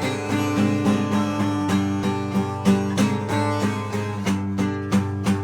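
Strummed acoustic guitar playing a country-style intro, with a steady rhythm of strums.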